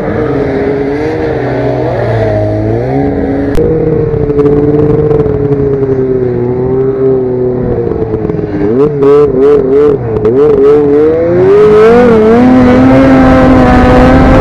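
Snowmobile engine running under throttle, its pitch rising and falling as the rider works the throttle. Around nine seconds in it swings up and down quickly, then it holds at a higher pitch near the end.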